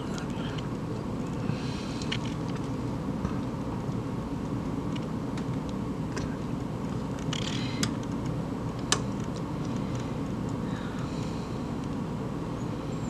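Steady low mains hum from a single-tube fluorescent fitting's ballast, with a few faint clicks.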